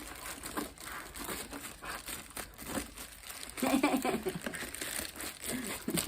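Packaging from a delivered box crinkling and rustling as it is handled and pulled open, with irregular crackles and a louder, denser stretch about halfway through.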